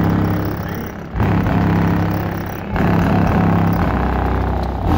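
Deep bass notes of a rap track played loud through Sound Qubed HDS 12-inch car subwoofers, heard from outside the car. Each low note is held for a second or two, with new hits coming in about a second in, just under three seconds in and near the end.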